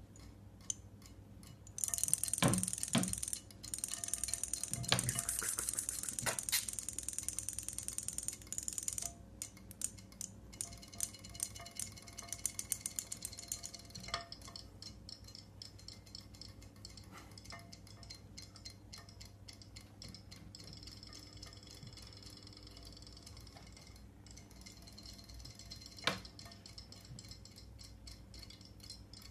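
Water splashing and sloshing in a glass bowl for several seconds as a kitten paws at it, with rapid ticking from the battery-powered robotic toy fish in the bowl. The ticking thins to separate ticks and then fades, leaving a faint hum, with one sharp click near the end.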